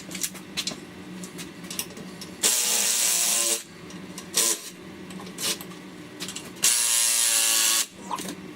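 Impact wrench run twice, about a second each time, on chainsaw bar nuts, with clicks and knocks of tools and parts being handled in between.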